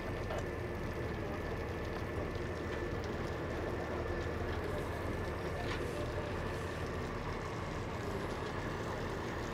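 Steady drone of a heavy rotator tow truck's engine running as its winch cable pulls a waterlogged box truck up a boat ramp.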